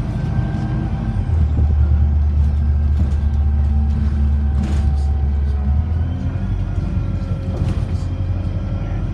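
Diesel engine of an Alexander Dennis Enviro400 double-decker bus, converted from hybrid drive, heard from the upper deck while under way. The deep drone strengthens about a second in as the engine works harder and eases off about six seconds in, with a couple of brief interior rattles.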